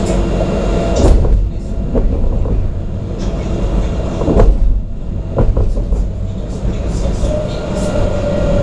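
Alstom Citadis 302 tram running, heard from inside the car: a steady low rumble of wheels on rail with several sharp knocks. A whine fades out about a second in and returns near the end, sinking slightly in pitch.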